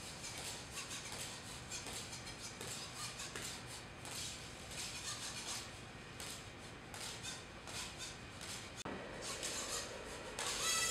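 Salto-1P jumping robot hopping repeatedly on carpet: a rapid, irregular run of light ticks and taps over the high whir of its small motor and aerodynamic thrusters. About nine seconds in the sound changes abruptly and grows louder, and near the end a higher motor whine with a few pitched tones comes in.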